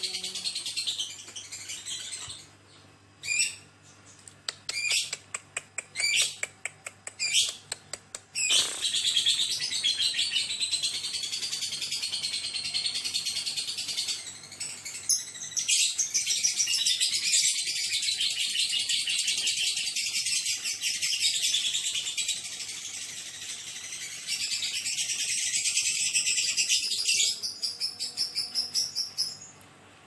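Lovebird ngekek: a few short bursts of high chattering, then one long unbroken trilling chatter lasting about eighteen seconds, ending in a run of quick chirps. The length of this continuous trill is what lovebird song contests judge.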